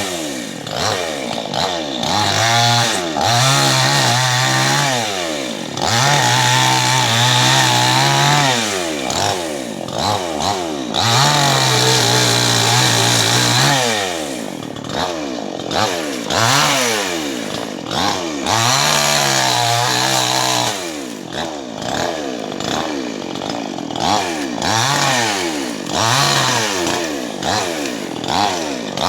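Two-stroke chainsaw revved up and down again and again. In the first half it holds at high speed for two or three seconds at a time; later the revs come in shorter, quicker blips.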